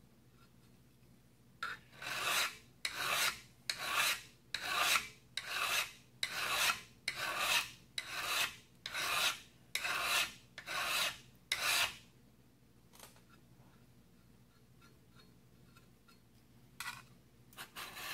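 Hand file rasping across the edge of a carbon-steel plate held in a vise, about a dozen even strokes at a little over one a second, filing off the burr to leave a sharp 90-degree scraper edge. The strokes stop about 12 seconds in, and filing starts again near the end.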